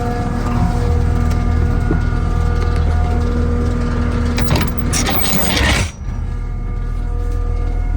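Kubota diesel engine of a Takeuchi TL12 tracked compact loader running steadily. From about four and a half seconds in, a loud burst of harsh noise rises over it and cuts off suddenly about six seconds in.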